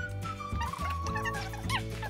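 Background music with a bass line changing note about every half second, over which short, high squeaky glides come and go.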